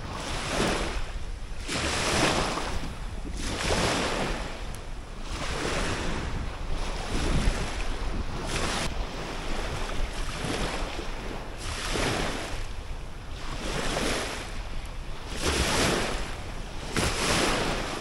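Small lake waves washing at the shore in regular swells about every one and a half to two seconds, with wind rumbling on the microphone.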